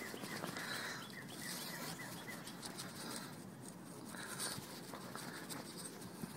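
Faint outdoor ambience: a bird chirping in quick, repeated short notes during the first couple of seconds, with light rustling and a few small clicks.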